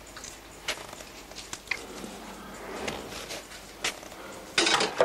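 Small eating sounds at a kitchen table: light clicks and rustles of food being picked apart by hand on a plate, with a short, loud burst of noise near the end.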